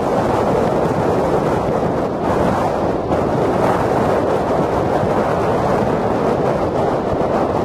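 Wind buffeting the camera's microphone: a steady, loud rushing that rises and falls slightly, with no clear engine note standing out.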